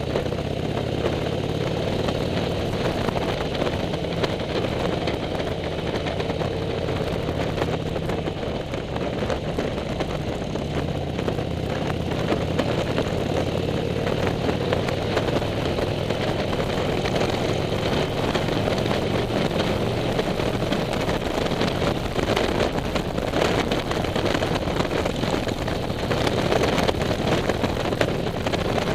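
Motorcycle riding at steady cruising speed: a steady engine drone with wind rushing past the windshield and microphone.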